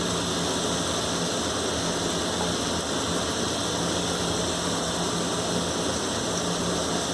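Paneer cubes frying in butter in a pan, a steady sizzling hiss over a constant low hum.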